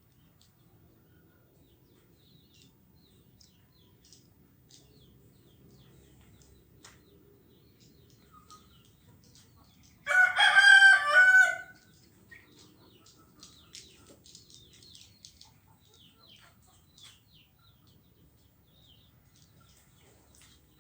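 A rooster crows once, loud, about halfway through. Faint high chirps of the feeding swiftlets twitter around it.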